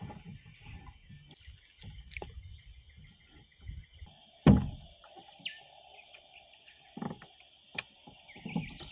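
Handling knocks and clicks on a plastic fishing kayak, with one loud knock about four and a half seconds in, over a steady high insect drone.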